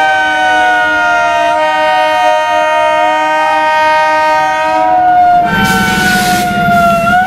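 Railway horn sounding one long, steady chord of several notes, its pitch wavering slightly; a hiss joins in about five and a half seconds in.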